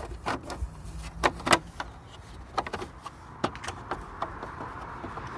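Plastic tow-mirror cap being pushed onto the mirror housing by hand: several sharp clicks and knocks as its tabs seat and snap into place, the loudest about a second and a half in.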